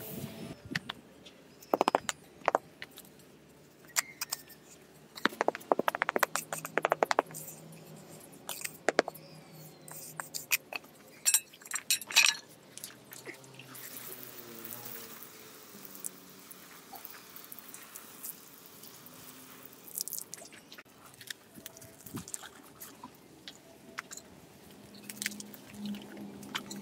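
Small hand tools scraping and clicking against sand and brick while a miniature foundation is levelled and covered with mortar, the strokes coming irregularly and most densely in the first half. In the middle comes a hiss of water sprayed onto the sand bed, lasting several seconds.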